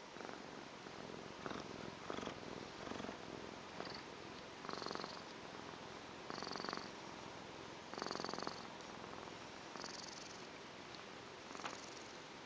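A Tonkinese cat purring steadily. The purr swells louder every second and a half to two seconds.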